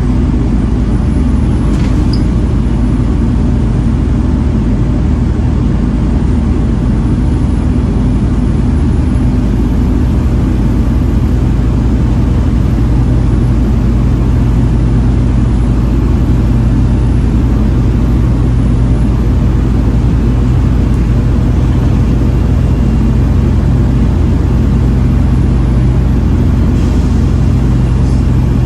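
Volvo B7TL double-decker bus's diesel engine and drivetrain running steadily under way, a constant droning hum with no marked changes.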